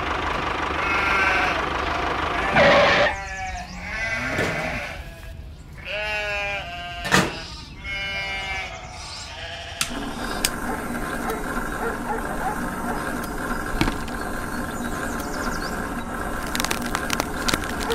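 A small motor hums steadily and stops about three seconds in. Several quavering bleats follow, like a sheep's or goat's, and the motor hums steadily again from about ten seconds in.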